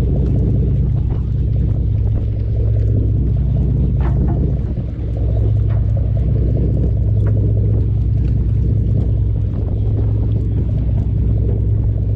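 Sportfishing boat's engine running, a steady low hum, with a few faint clicks over it.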